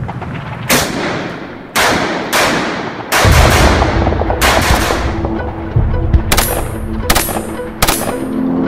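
Gunfire: about five single heavy shots, each with a long fading echo, then three short bursts of rapid automatic fire in the second half. Background music comes in under the shots about four seconds in.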